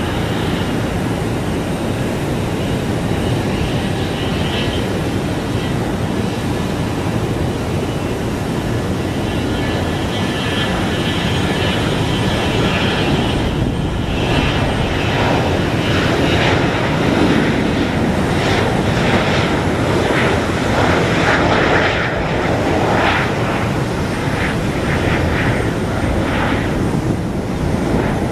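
Bombardier Global 5000 business jet's twin Rolls-Royce BR710 turbofans at takeoff power through the takeoff run and climb-out: a steady jet noise with a high whine, louder and rougher in the second half as the jet passes and lifts off.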